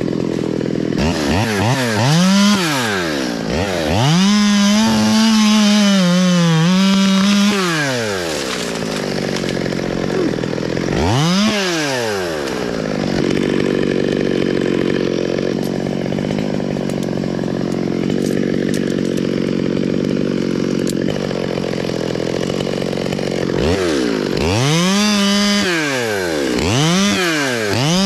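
Two-stroke top-handle chainsaw being revved up and down repeatedly. It is held at full speed for a few seconds about four seconds in, runs lower and steadier through the middle, and is blipped several more times near the end.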